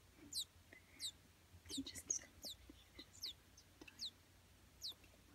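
Baby American robin nestling, a couple of days old, giving faint, high, thin peeps, each falling in pitch, about one every half second to a second.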